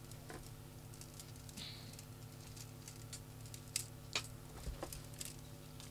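Stiff enamelled copper wire being handled, giving scattered light clicks and rattly taps, two of them sharper a little under four seconds in and just after four seconds.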